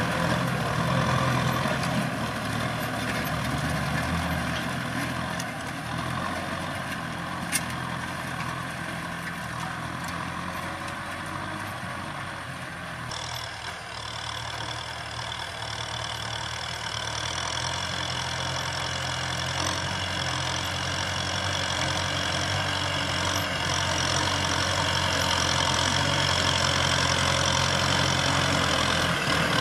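Kubota M6040SU tractor's diesel engine running steadily under load while pulling a disc plough through dry soil. It grows louder over the last part as the tractor draws closer.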